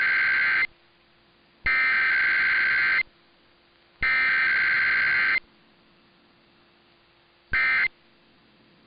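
Emergency Alert System SAME data bursts: the digital header tones, each burst about a second and a half long with a second's gap between, sent in repeat, followed near the end by short end-of-message bursts.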